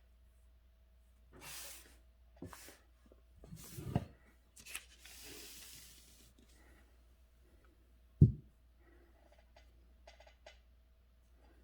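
Paper and writing materials being handled: several short rustles and scrapes, a single loud thump about eight seconds in, and a few soft clicks near the end.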